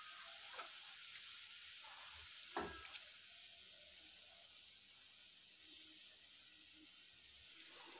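Curry-leaf gravy with fried fish pieces sizzling faintly in a metal kadai as a steady high hiss. A couple of light knocks stand out, the clearest about two and a half seconds in.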